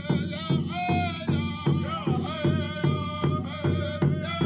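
Background music with a steady beat, about two to three beats a second, under a sustained melody.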